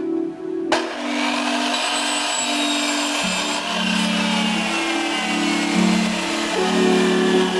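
Electric saw cutting through wood, starting abruptly just under a second in and running steadily, over background music.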